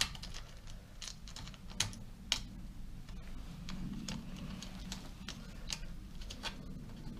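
Scattered light clicks and taps of small metal and plastic parts and hand tools as a petrol string trimmer's carburettor is refitted, a few irregular clicks with pauses between them.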